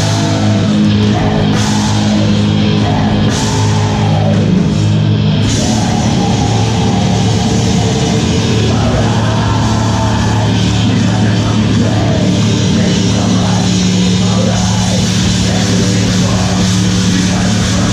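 Death metal band playing live, heard from within the crowd: distorted guitars, drums and vocals, loud and steady, with the sound filling out in the highs about five seconds in.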